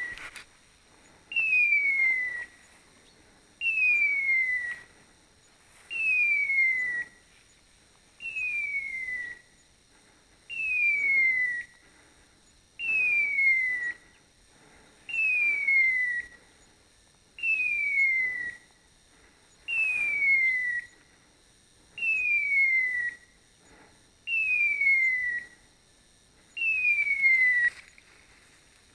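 Hunting dog's beeper collar in point mode: a falling electronic whistle about a second long, repeating evenly every two and a half seconds or so, the signal that the dog is standing still on point.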